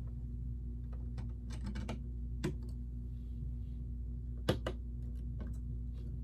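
Lego bricks clicking as plastic pieces are handled and pressed together: scattered sharp clicks, the loudest pair about four and a half seconds in, over a steady low hum.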